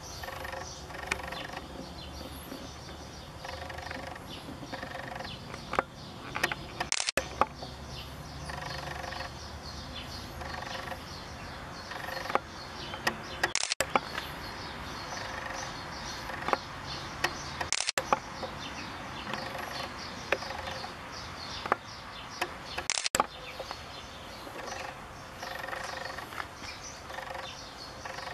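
Outdoor ambience with birds chirping and many short sharp clicks scattered through it. The sound drops out for an instant four times.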